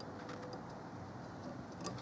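A bird cooing once faintly, a short low steady note, over quiet background hiss, with a faint click near the end.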